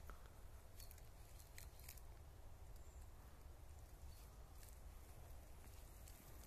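Near silence: faint outdoor woodland ambience, a low steady rumble with a few soft scattered ticks.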